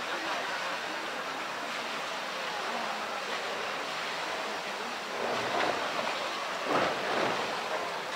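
Pool water sloshing and splashing as a polar bear plays with a plastic barrel in the water, with louder splashes about five seconds in and again about seven seconds in.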